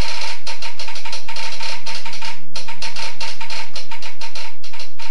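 Telegraph sounder clattering with rapid, irregular clicks, the pattern of Morse code being received, with a brief pause about halfway through.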